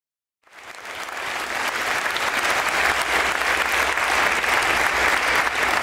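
Audience applauding: it starts about half a second in, swells over the next second or two, then holds steady.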